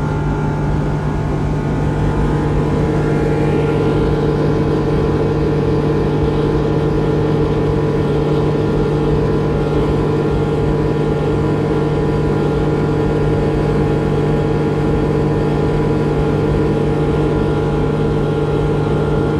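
Suzuki 300 hp V6 four-stroke outboard running steadily at high speed, a constant engine drone mixed with the rush of wind and water around the moving boat.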